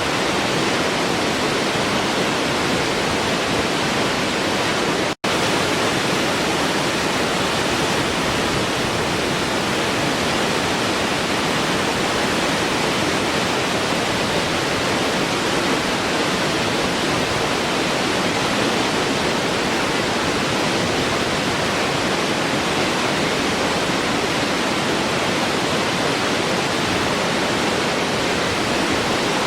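Waterfall: a steady, even rush of falling water, with a split-second dropout about five seconds in.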